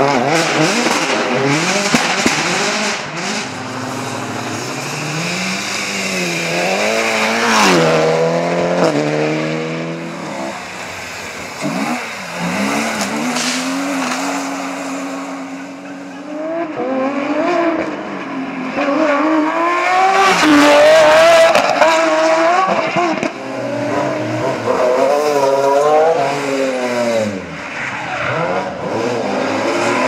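Rally cars passing flat out one after another, engines revving hard with the pitch climbing and dropping through gear changes and lifts off the throttle. Tyre and gravel noise come through as each car goes by.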